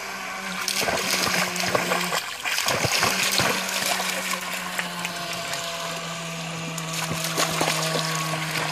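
Radio-controlled speedboat's electric motor whining steadily across the water, its pitch dropping for a moment about two seconds in and stepping slightly lower partway through as the throttle changes, over the splashing of a dog wading in shallow water.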